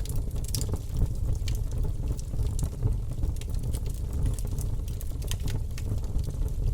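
Campfire burning, wood crackling with scattered sharp pops over a steady low rumble.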